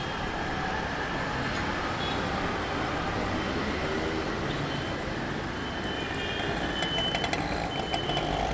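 Street traffic: a steady rumble of passing cars, buses and trucks, with a few short high tones and clicks in the last two seconds.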